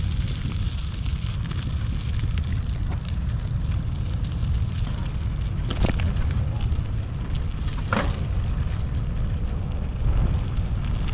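Wind buffeting the microphone: a steady low rumble. Two sharp knocks come about six and eight seconds in.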